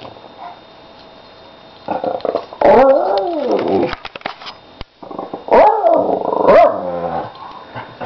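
Two small dogs, a Lhasa Apso and a puppy, vocalising while play-fighting: loud growling calls that rise and fall in pitch, in two bouts starting about two and five and a half seconds in, with sharp scuffling clicks between them. The owner is unsure whether these are play sounds or real aggression.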